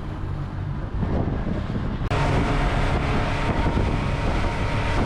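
A fishing boat's motor running underway, with wind noise on the microphone and water rushing past; about two seconds in it gets louder.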